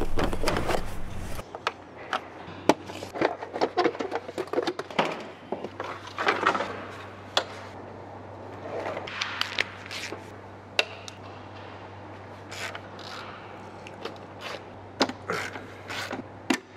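Hands taking apart a car's engine bay: plastic covers, wiring connectors and hand tools clicking, knocking and scraping at irregular intervals. A louder rumble of handling comes in the first second or so, over a low steady hum.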